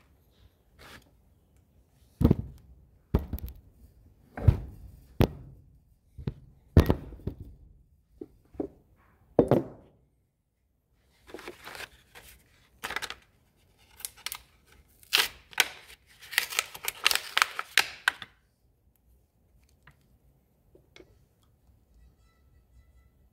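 Hard objects being handled on a workbench: about seven sharp knocks over the first half, then several seconds of rustling and scraping.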